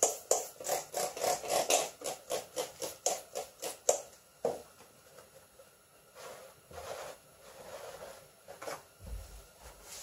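Hand trigger spray bottle squirted rapidly, about three or four sprays a second, stopping about four seconds in. After a soft knock, a cloth rubs and wipes over the car's door sill.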